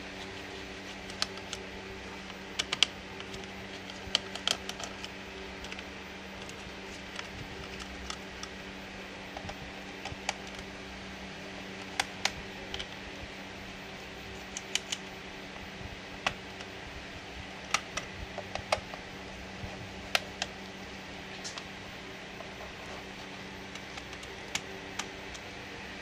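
Irregular small clicks and taps, some in quick pairs, from tools and plastic parts as a laptop is taken apart. They sound over a steady low hum.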